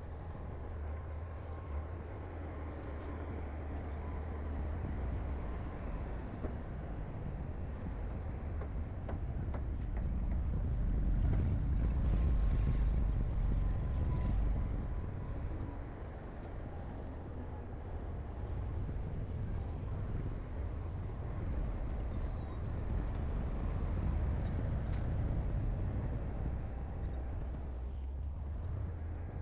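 Diesel engine of heavy earthmoving equipment running under load: a low, continuous rumble that swells to its loudest about midway, then eases back.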